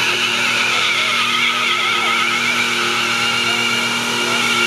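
Holden VN Commodore doing a burnout: the engine is held at steady revs while the spinning rear tyres squeal with a wavering pitch.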